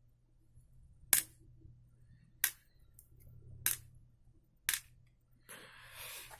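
Four sharp metallic clicks about a second apart as the steel liner frame of a disassembled Ontario RAT-1 folding knife is worked by hand with a screwdriver, then a rustle of handling near the end.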